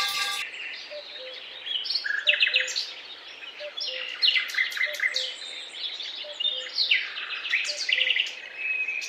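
Several songbirds singing: quick chirps, short trills and sliding notes, one after another. A loud ringing sound cuts off right at the start.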